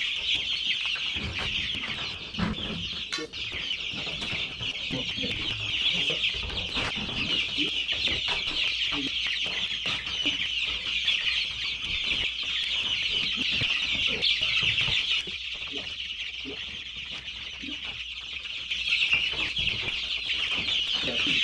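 A brooder full of several dozen young chicks peeping continuously in a dense, high chorus. Occasional low knocks and bumps come from the box beneath it.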